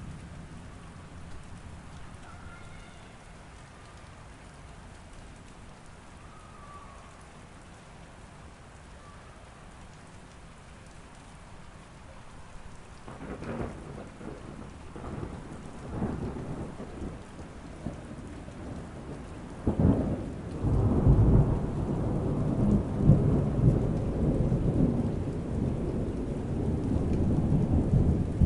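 Thunderstorm: steady rain, then thunder that starts with a few sharp cracks about halfway through and builds into a long, loud rumble over the last third.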